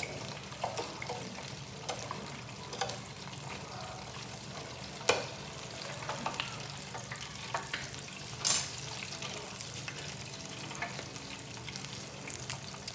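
Beer-battered lobster tails deep-frying in hot oil: a steady sizzle with scattered sharper crackles, the loudest about eight and a half seconds in.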